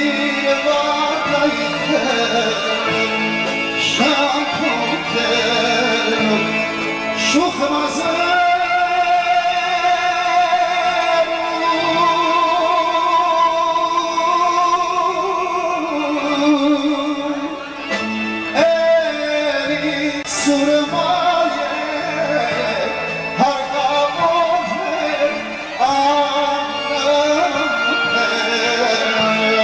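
Armenian song performed live by a male singer into a microphone over a small band with drums, the singer holding long, wavering notes.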